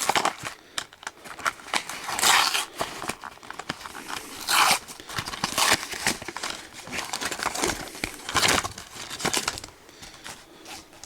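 Plastic blister packaging being handled and pried open, crinkling in irregular bursts, with cardboard backing tearing, to free a collector pin.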